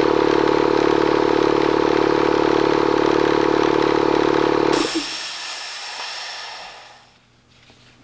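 Bostitch air compressor's motor and pump running steadily, then shutting off abruptly about five seconds in, the sign that the tank has reached cut-out pressure. A hiss of air venting from the unloader follows and fades away over about two seconds.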